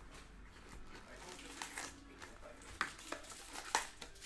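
Plastic packaging crinkling and tearing, with a few sharp crackles in the second half, over faint low background talk.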